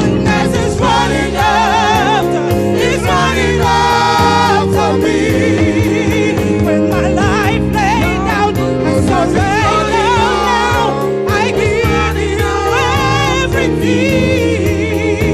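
Gospel-style song with singing voices over instrumental backing, loud and continuous.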